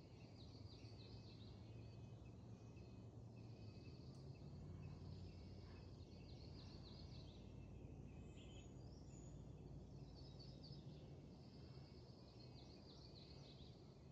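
Faint birdsong: a songbird repeating a short high song every few seconds, each a trill followed by quick falling notes, with a few higher chirps in between, over a low steady rumble.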